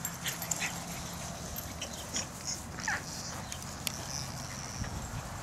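Boston terrier puppy giving a brief whimper about three seconds in, over small clicks and rustling in the grass and a faint steady low hum.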